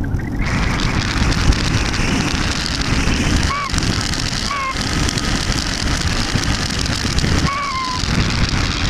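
Steady rushing wind noise on the onboard camera of an Easystar 2 RC plane in flight. Three short, high, call-like tones break through it, about 3.5, 4.5 and 7.5 seconds in.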